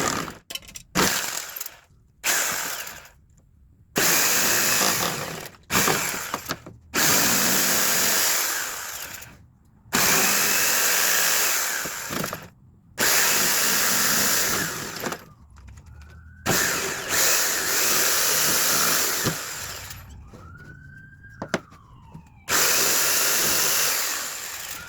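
Handheld circular saw cutting a wooden fence picket in short bursts, the motor starting and stopping about ten times. A siren passes, rising and falling, in the quieter stretch near the end.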